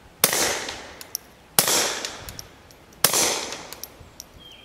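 Three suppressed .22 LR shots from a Beretta 21A tip-up pistol fitted with a suppressor, about a second and a half apart, each a sharp report that fades quickly.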